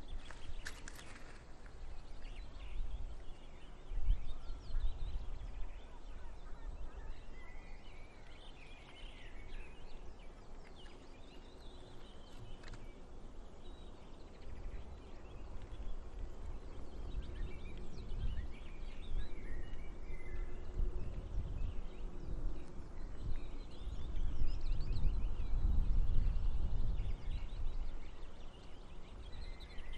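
Wind rumbling on the microphone, growing louder towards the end, with scattered short high bird calls, some in quick series.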